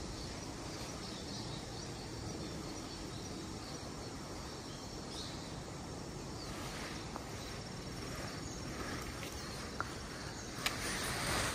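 Steady outdoor background of insects chirring, with a couple of faint clicks near the end.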